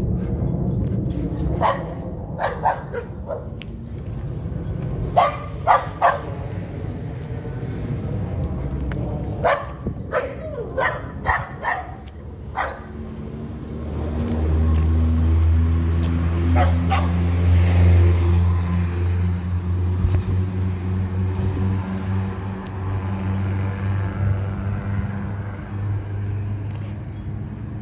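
A dog barking in groups of a few sharp barks. About halfway a motor vehicle's engine comes in as a steady low hum, loudest a few seconds later.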